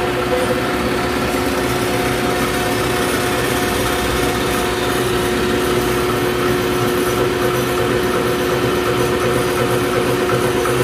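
Diesel injection-pump calibration test bench running steadily, its drive spinning a Mitsubishi 6D16 inline injection pump, with a steady hum over a mechanical whirr.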